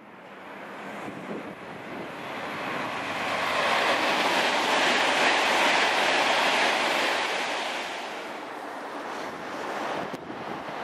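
Virgin Trains Class 390 Pendolino electric train passing at speed: a rushing roar of wheels and air that builds, peaks midway and fades as the train goes by. Near the end it cuts to a quieter steady background.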